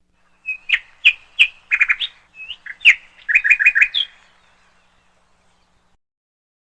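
A bird chirping: a quick run of sharp chirps and short rapid trills for about four seconds, then it stops.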